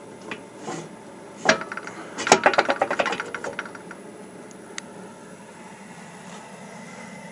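Steel damper on the smoker's exhaust stacks being worked by hand: a sharp metal knock about a second and a half in, then a quick run of ringing metallic clanks and rattles lasting about a second and a half, with a few lighter clicks around them.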